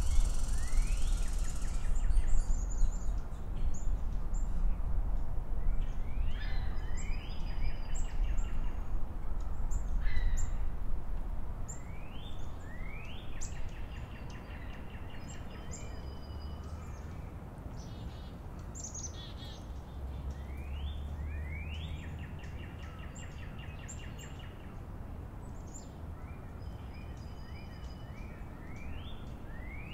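Songbirds calling repeatedly: short chirps that sweep upward in pitch, several trailing into a quick stutter, over a low rumble that eases off about twelve seconds in.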